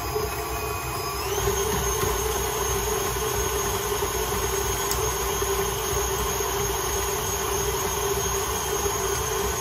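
KitchenAid Artisan stand mixer's motor running with a whine as it creams margarine and sugar in its steel bowl; it speeds up about a second and a half in, then runs steady.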